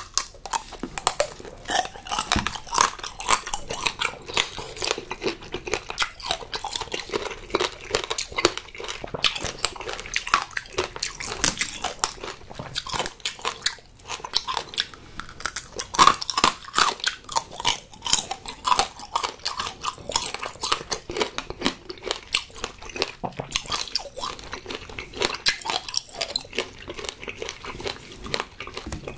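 Close-up crunching and chewing of green-grape tanghulu: the hard, glassy sugar shell cracking between the teeth in dense, rapid crackles as the candied grapes are bitten and chewed.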